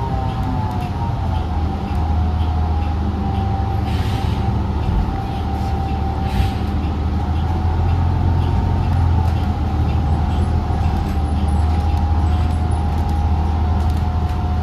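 Cabin sound of a 2016 New Flyer XDE40 diesel-electric hybrid bus under way: a steady low drone with a high whine over it that dips slightly in pitch in the first second, and faint regular ticking about once every 0.7 seconds.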